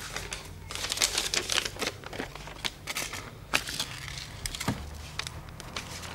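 Paper being handled and signed on a shop counter: irregular quick clicks, taps and rustles from the pen and its bead chain, over a low steady hum.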